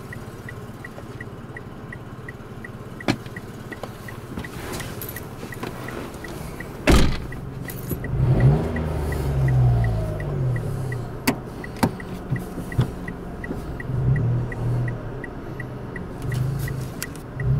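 A car's warning chime ticking evenly, about three to four times a second, throughout. About seven seconds in, the driver's door shuts with a loud thump, and after it the car's engine runs with a low, uneven hum.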